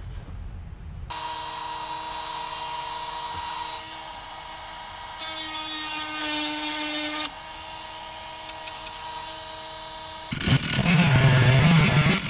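Steady held tones with a louder, hissier stretch in the middle, then about ten seconds in a Stihl chainsaw on a Granberg Alaskan chainsaw mill starts running loudly under load, cutting a walnut slab.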